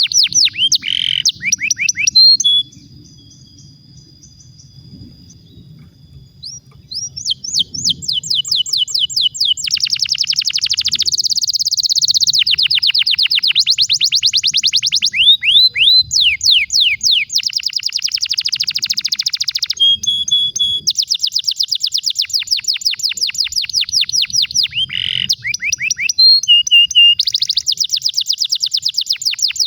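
Domestic canary singing a long rolling song: runs of very fast repeated high notes and trills, one run after another. The song breaks off for about four seconds near the start.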